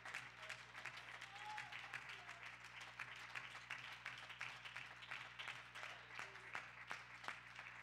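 Congregation clapping, faint and irregular, with a few scattered voices and a steady low hum beneath.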